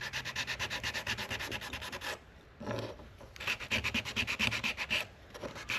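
Sandpaper rubbed in quick, even back-and-forth strokes over small wooden intarsia pieces. The strokes come in two runs, with a pause of about a second just after two seconds in.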